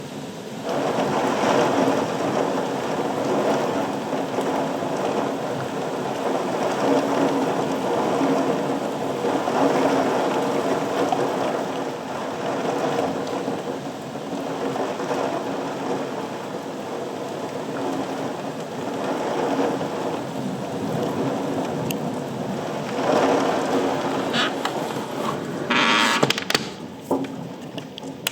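Heavy rain falling steadily at the back end of a thunderstorm, with thunder rumbling in slow swells every few seconds. A brief louder rush comes near the end.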